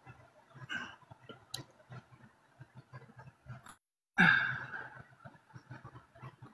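A person sighing once, a breathy exhale about four seconds in, against faint scattered clicks and small handling sounds.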